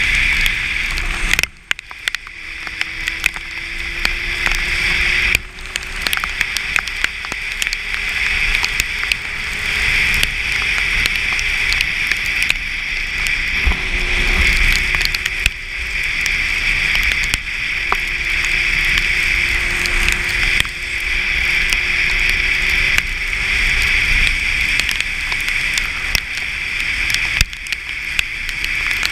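Sport motorcycle riding on a wet road in the rain: a steady rush of wind and tyre spray, with the engine's note faint underneath and drifting slightly in pitch. The noise drops briefly about a second and a half in.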